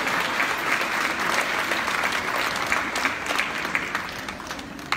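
An audience applauding, the clapping thinning out and fading over the last second or two.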